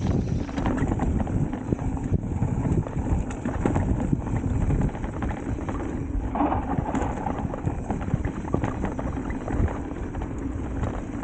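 Electric mountain bike riding down a rough dirt trail: a steady rumble of tyres over roots and rocks with rapid knocks and rattles from the bike.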